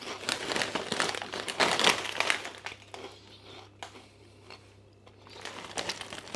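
Crisp packet crinkling and rustling, busiest in the first two seconds, fainter in the middle and picking up again near the end.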